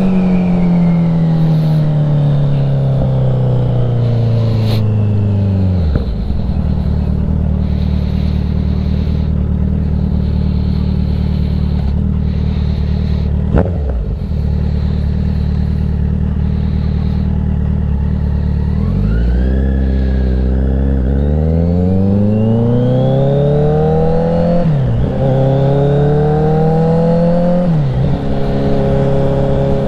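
Kawasaki Z900 inline-four engine slowing down and then idling steadily for about thirteen seconds. It then accelerates hard, rising in pitch through three quick upshifts, and settles to a steady cruise near the end.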